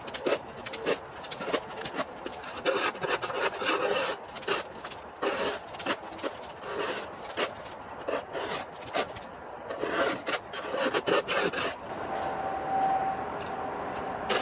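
Orange plastic snow shovel scraping across wet paving stones, pushing wet snow in repeated rough, irregular strokes. The scraping eases off near the end.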